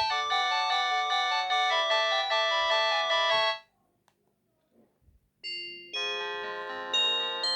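Samsung SGH-T100 mobile phone ringtone: an electronic melody with several notes sounding at once, which cuts off about three and a half seconds in. A couple of faint clicks fall in the short gap, then the next ringtone starts with a few chime-like notes and fills out into a fuller tune.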